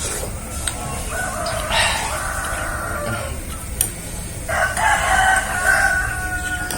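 Rooster crowing twice, each crow about two seconds long.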